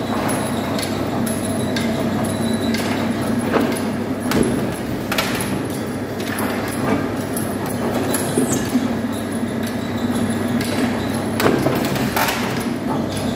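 Motor-driven sheet-metal shearing machine running: a steady drone from its motor and flywheel drive, broken by irregular sharp metallic clanks.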